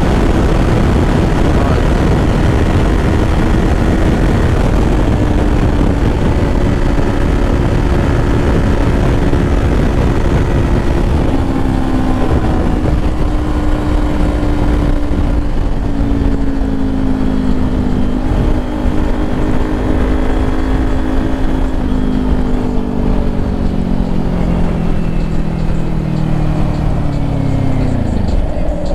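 Kawasaki Ninja 400 parallel-twin engine running at highway speed under heavy wind rush on the microphone. Its note sinks slowly, then falls off sharply near the end as the revs drop.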